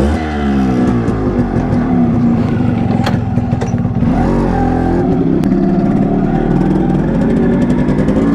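Yamaha RX 100's two-stroke single-cylinder engine running and revving, its pitch rising and falling with the throttle.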